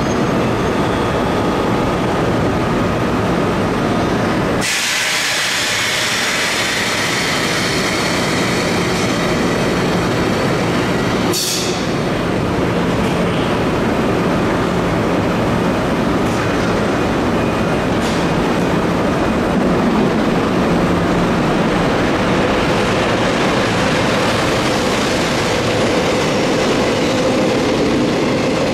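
EF65 electric locomotive standing with its freight train and then starting to pull away, its running noise steady throughout. A sudden loud hiss comes in about five seconds in and fades, a short sharp hiss follows about eleven seconds in, and a steady hum strengthens near the end as the train gets moving.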